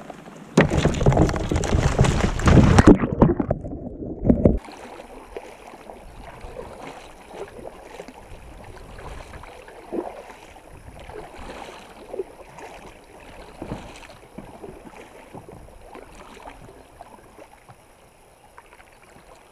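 A Jackson Coosa HD fishing kayak capsizing in a river: a loud splash and rush of water about a second in that lasts around four seconds and turns muffled near its end. Then a kayak paddle dipping into the river in steady, unhurried strokes.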